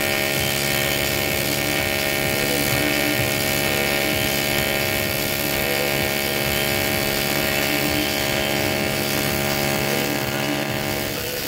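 AC TIG welding arc on aluminium buzzing steadily, with a hiss over the buzz.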